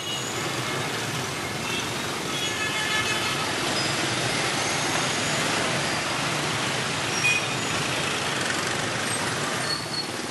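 Dense motorbike and scooter traffic: many small engines running together in a steady din, with a few short horn beeps.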